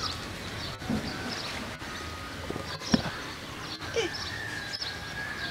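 Outdoor rural ambience: scattered faint bird chirps over a steady background hiss, with a short knock about three seconds in.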